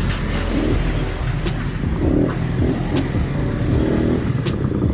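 Keeway Cafe Racer 152 motorcycle engine running steadily while being ridden, with a few sharp clicks.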